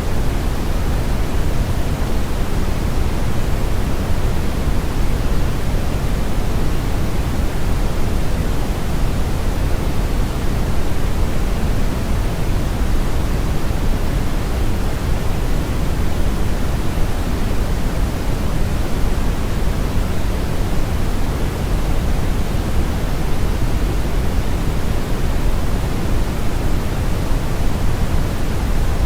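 Continuous synthetic brown noise blended with white noise: a steady, even hiss weighted toward the low end, with no change or break.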